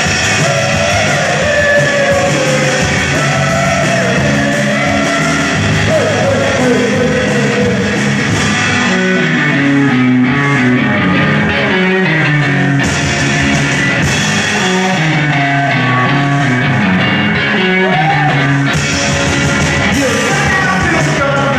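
Live rock band playing loudly: electric guitar, bass and drum kit, with a man singing over them.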